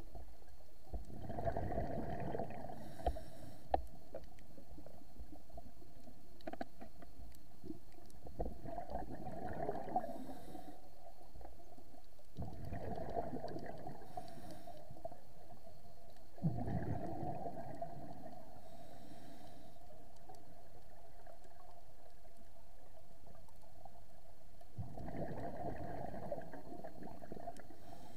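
Scuba diver breathing through a regulator underwater: exhaled bubbles rumble and gurgle in long bursts every few seconds, with a short hiss of the inhale between them.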